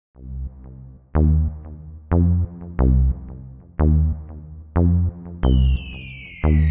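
Electronic background music that starts a moment in, with heavy bass-drum hits about once a second; a high falling synth sweep comes in about five seconds in.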